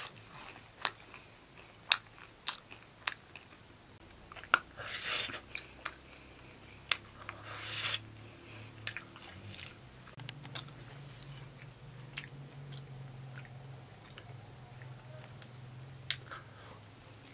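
People biting into and chewing crisp fried pastries, heard up close: scattered sharp clicks of bites and mouth sounds, with two longer crunching bites about five and eight seconds in.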